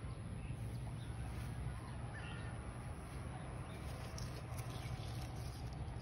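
Outdoor background noise: a steady low rumble with a few faint bird chirps about two seconds in.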